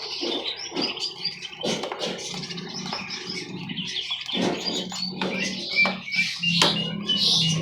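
Small songbirds chirping and calling in quick, short notes, with scattered clicks and knocks. A low steady hum comes in a little past halfway.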